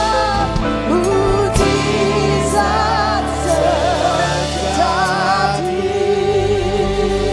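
Christian worship music: a praise band plays sustained chords and bass under long held sung notes that waver with vibrato.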